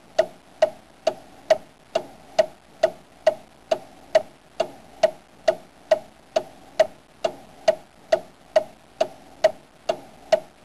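Wooden fish (mõ) struck in a steady beat, a little over two strikes a second, each a short knock with a brief ring.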